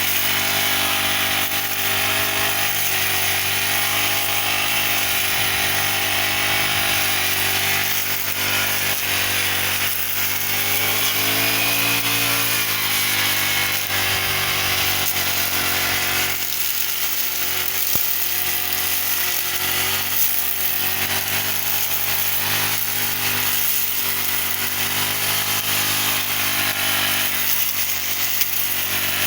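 Petrol brush cutter engine running steadily at high revs while cutting grass, its pitch shifting briefly about twelve seconds in.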